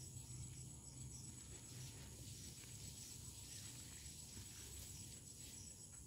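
Faint steady chirring of insects, a high continuous drone with a soft pulse about two to three times a second, over a low hum.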